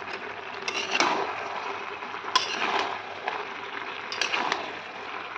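A metal spatula stirring a pan of mixed-vegetable labra, with a few sharp scrapes and knocks against the pan over a steady sizzle.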